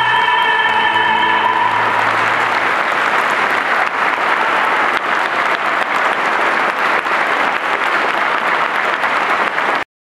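A woman singer and an opera tenor hold the final note of a duet for about two seconds, then the audience applauds. The applause cuts off abruptly near the end.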